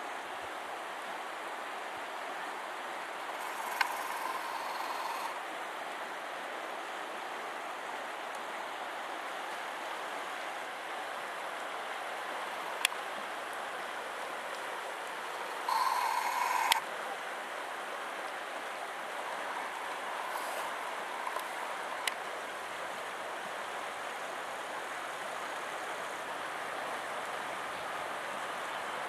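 Steady rushing of the fast-flowing Black Cheremosh river, its turbulent current running over the riverbed. A short, louder noise comes about sixteen seconds in, with fainter ones near four and twenty seconds and a few sharp clicks.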